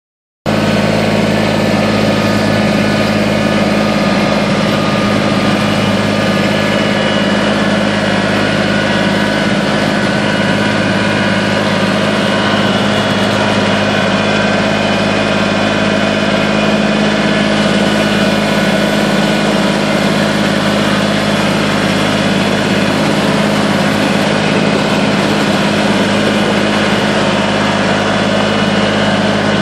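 Kubota BX25 compact tractor's three-cylinder diesel engine running steadily at an even speed while plowing snow.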